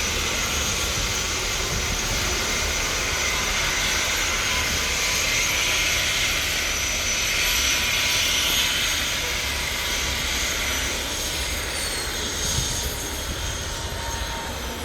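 Helicopter running close by: a steady rushing noise with a high whine over it. In the last few seconds several high whine tones slide down in pitch.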